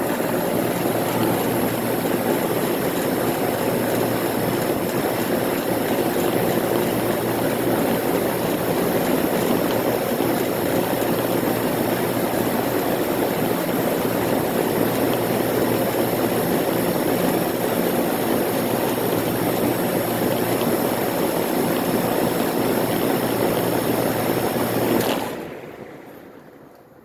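A 1993 Heil 5-ton air conditioner condensing unit running steadily, its compressor and condenser fan going together; the owner says it struggles badly. About 25 seconds in, it is switched off and the sound dies away within a couple of seconds.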